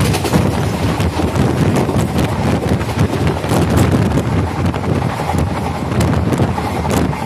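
Express train's wheels clattering over the rail joints at running speed, a quick run of sharp clicks over a steady rush of rolling noise, with wind buffeting the microphone.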